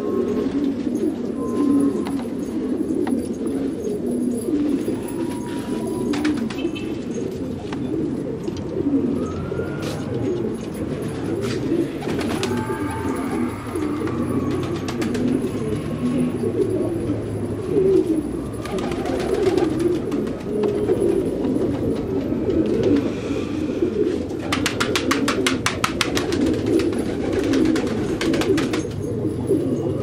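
A flock of domestic fancy pigeons cooing together in a dense, overlapping chorus, with a few higher gliding calls. A rapid run of clicks lasts a few seconds near the end.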